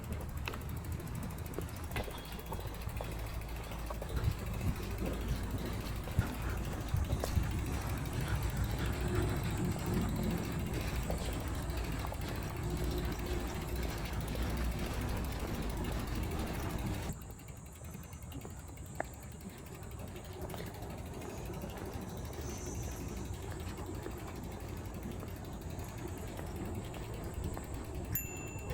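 Outdoor ambience on a walk: a steady low rumble with scattered faint clicks and ticks, which falls off abruptly about two-thirds of the way in and stays quieter.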